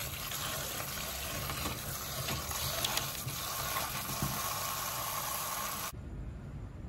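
Kitchen tap water running and splashing onto grapes in a plastic punnet in a stainless steel sink. It cuts off suddenly about six seconds in, leaving a quieter low hum.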